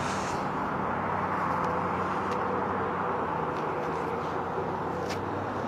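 Steady engine rumble of vehicles with a low droning hum running through it, unchanging in level.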